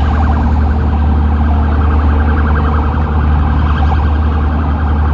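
A fast-warbling, siren-like electronic tone over a steady low rumble.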